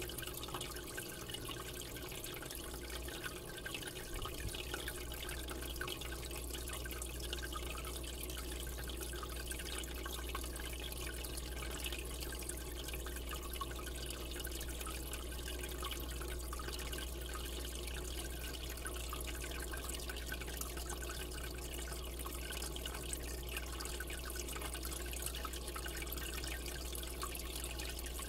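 Aquarium water trickling and splashing steadily, with a low steady hum underneath.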